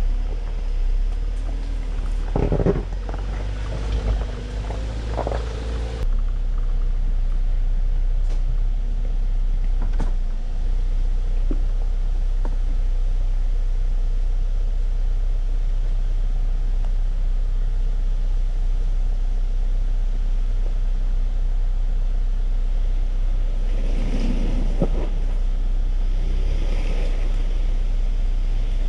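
2020 Ford Ranger 4x4 pickup driving an off-road trail: a steady low rumble, with a few short knocks near the start and a busier stretch about 24 seconds in.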